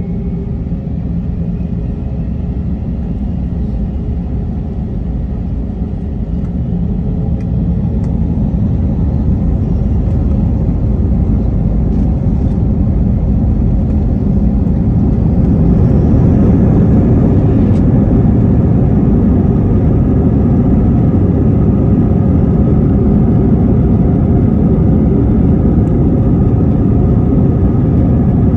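Airbus A321's IAE V2500 turbofan engines spooling up to takeoff thrust, heard inside the cabin: a deep rumble with a faint rising whine, growing louder over the first fifteen seconds or so, then holding steady during the takeoff roll.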